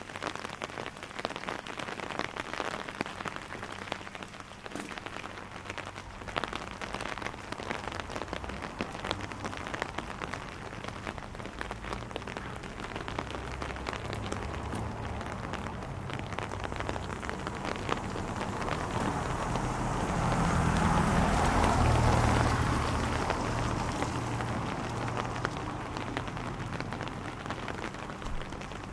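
Rain pattering on an umbrella, with many individual drops ticking. A low rumble and hiss swell up and fade away about two-thirds of the way through.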